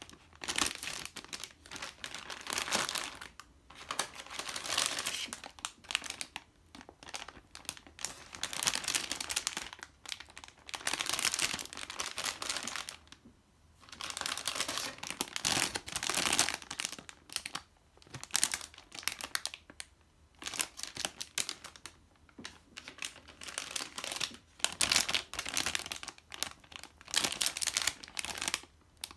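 Clear plastic bags around model-kit runners crinkling as hands handle them, in irregular bursts with short pauses between.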